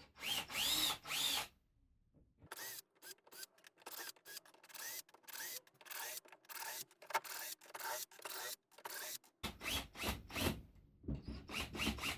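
Power drill run in repeated trigger bursts, each one speeding up and slowing down, while drilling holes in timber. Two longer runs come at the start, then a quick series of short bursts about two a second, and a few longer runs near the end.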